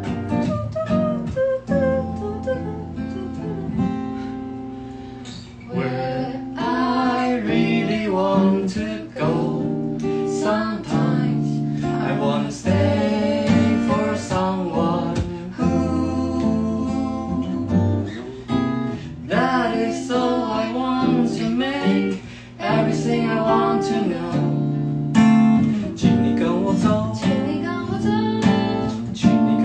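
Acoustic guitar strummed as accompaniment to a woman and a man singing together.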